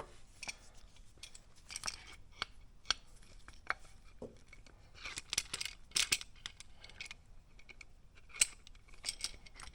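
Scattered light metallic clicks and clinks of a C-clamp being handled and set against a motorcycle brake caliper to push its pistons back. The clicks come thicker about five seconds in and again near the end.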